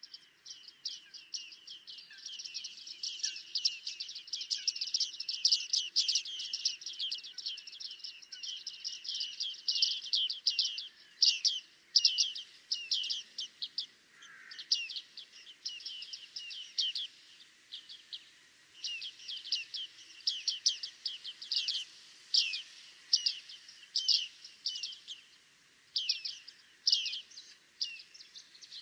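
Flock of bearded tits calling: many short, sharp, high 'ping' calls that overlap densely at first, then come as separate calls a fraction of a second to a second apart.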